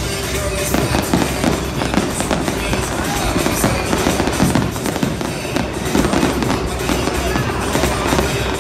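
Fireworks display: aerial shells bursting in rapid, overlapping succession, several bangs a second with no let-up, with music playing underneath.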